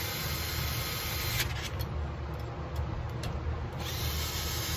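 Cordless drill-driver whirring as it drives the bucking-spike screws into a chainsaw's body, in two runs: one at the start lasting about a second and a half, and another beginning near the end.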